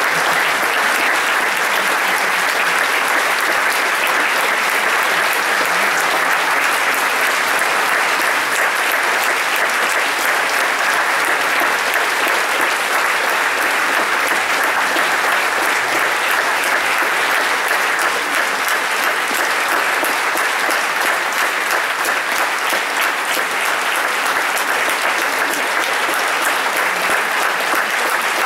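Theatre audience applauding steadily, many hands clapping in a dense, even patter that holds at the same level throughout.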